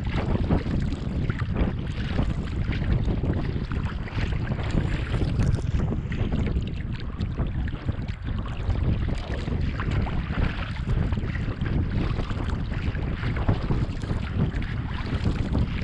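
Wind buffeting the microphone over water splashing and lapping around a sea kayak's hull and paddle blades as it is paddled through a choppy sea.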